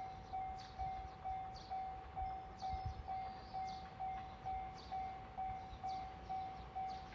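Japanese railway level-crossing warning bell ringing, an even electronic ding repeating about twice a second, which signals that a train is approaching the crossing.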